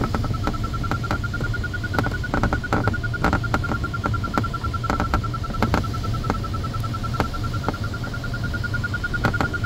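Glider variometer beeping rapidly at a high pitch, its tone edging higher at moments: the sign of a strong climb in a thermal core. Under it is the steady low rush of air over the cockpit, with scattered sharp clicks.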